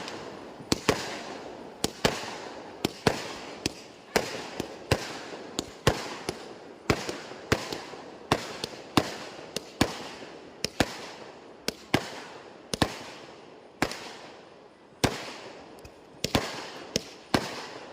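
Fireworks going off in quick succession, a sharp bang about every half second to second, each fading out in a short tail before the next.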